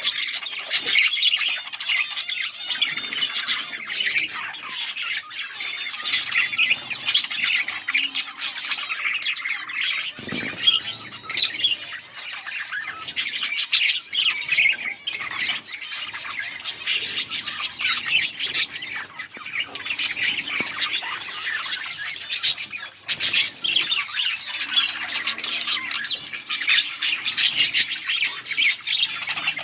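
Several budgerigars (budgies) chirping and chattering without pause: a dense stream of short, high chirps and squawks.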